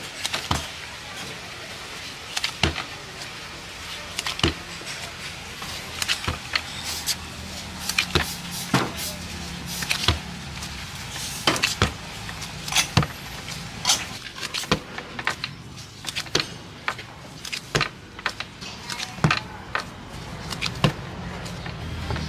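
Irregular sharp clinks and knocks of kitchen utensils against pans and dishes, over a low steady hum that is strongest in the middle stretch.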